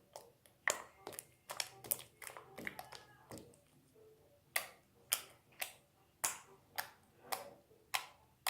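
Slime being squeezed and worked by hand, giving a series of sharp pops and clicks, about two a second in the second half.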